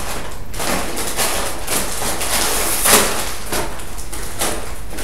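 Doritos chip bag crinkling and rustling as it is handled, in irregular bursts, loudest about three seconds in.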